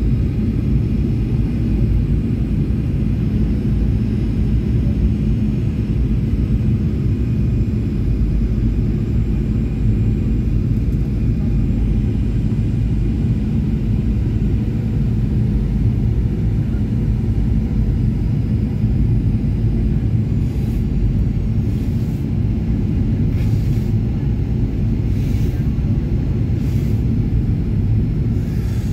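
Airliner cabin noise on approach to landing: a steady low rumble of the engines and the airflow past the fuselage, heard from inside the cabin.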